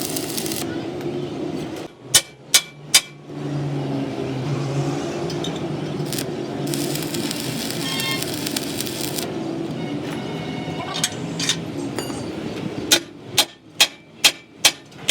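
Hammer blows on metal: three sharp strikes about two seconds in, then a run of evenly spaced strikes at about two to three a second near the end, over a steady background din.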